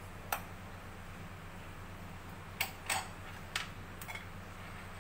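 Steel spoon clicking against a bowl of dry spiced gram-flour and peanut mixture: a handful of sharp taps, most of them in the second half, over a steady low hum.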